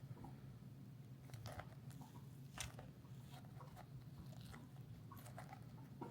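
Faint scattered clicks and rubbery rustles of a small rubber crawler tire being worked by hand over a plastic beadlock wheel half, over a low steady hum.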